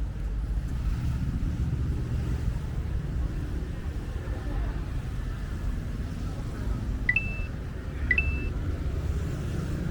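Low, steady street rumble of traffic and vehicles. About seven seconds in come two short high beeps, a second apart, each starting with a click.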